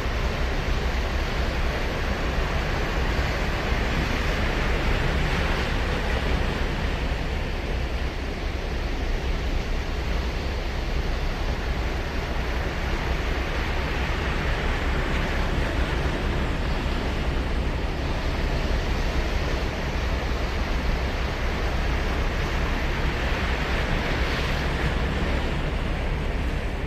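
Ocean surf: waves breaking and washing up the beach in a steady rush, swelling louder about every ten seconds, over a constant low rumble.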